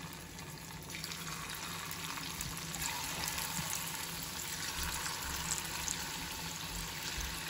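Batter-coated chicken pieces frying in hot oil in a frying pan: a steady sizzle with small crackles, growing louder about a second in as more pieces go into the oil.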